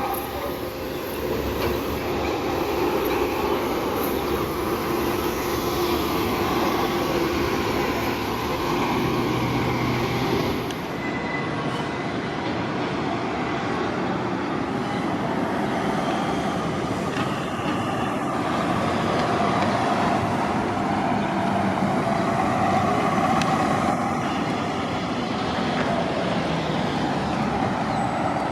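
City transit buses running at a busy terminal: a steady blend of engine noise from buses idling, pulling in and pulling out. A high hiss stops about ten seconds in.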